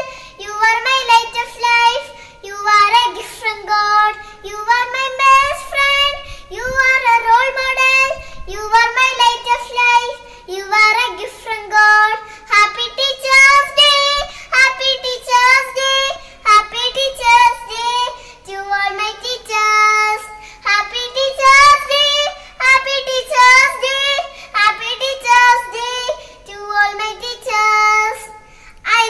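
A child singing a song in a high voice with no instruments heard, phrase after phrase with short breaths between.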